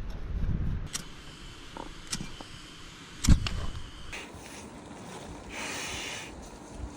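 Small camp stove and cooking gear being handled: a few light clicks, a loud knock about three seconds in, and a short hiss near the end.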